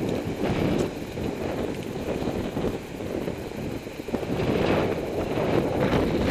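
Wind rumbling on the microphone of a camera carried on a moving road bike riding in a large group, mixed with rolling noise; it swells and fades unevenly and is strongest in the second half.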